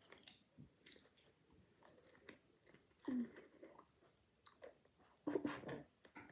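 A child chewing small candies close to the microphone: scattered small clicks of the mouth and teeth, with two louder moments about three seconds in and again near the end.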